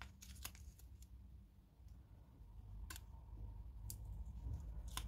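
A few faint, sharp clicks and crinkles as thin sheet foil and a plastic impressioning tool are handled in the fingers, spaced about a second apart.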